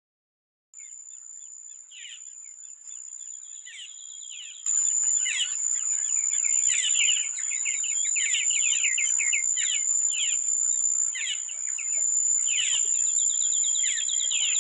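Tropical forest ambience: a steady high-pitched insect drone with pulsed insect trilling and many birds chirping. It starts after a brief silence and gets louder about five seconds in.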